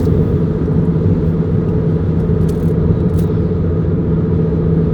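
Subaru WRX turbocharged flat-four with an ETS cold air intake, driving at a steady pace: a steady low engine and road drone that holds one pitch, with no revving.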